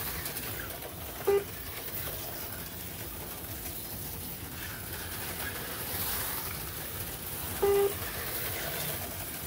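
Two electronic beeps from the slot car race-timing system, a short one about a second in and a longer one near the end, over the steady whir of HO slot cars running on the track.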